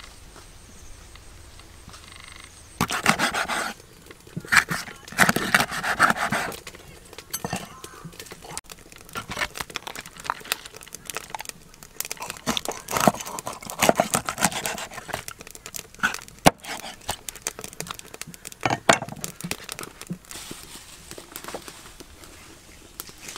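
Irregular rustling, crinkling and knocking from hands handling things, in uneven bursts with short pauses, loudest a few seconds in.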